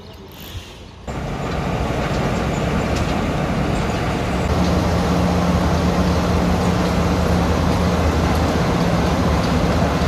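Steady engine noise with a low hum, starting suddenly about a second in and growing louder, the hum firming up about halfway through.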